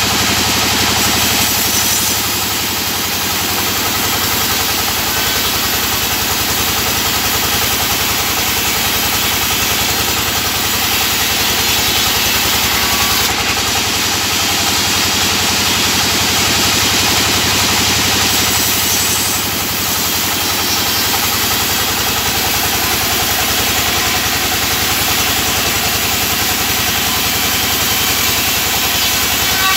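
Band sawmill running steadily as it cuts timber into thin boards: a continuous loud machine noise with the sawing hiss of the blade through wood. It dips slightly twice, a couple of seconds in and about twenty seconds in.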